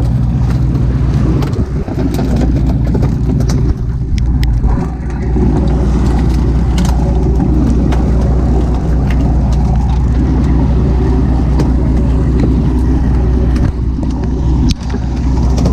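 A fishing boat's engine runs steadily as a constant loud low drone, with a few small knocks here and there.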